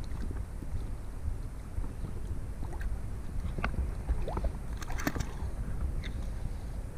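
Water moving around a kayak, with a steady low rumble of wind on the microphone. A few small clicks and short squeaky glides come in the middle.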